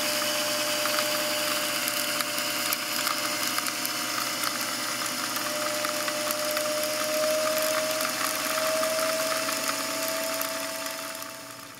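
Electric motor of a vintage sewing machine running at steady speed, winding a bobbin, with a constant whine. The whine rises slightly in pitch past the midpoint and fades out near the end.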